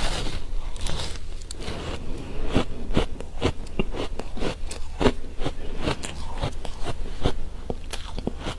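Close-up crunching of frozen ice as a bite is taken from an ice 'cake' and chewed, many sharp, irregular crunches a few times a second.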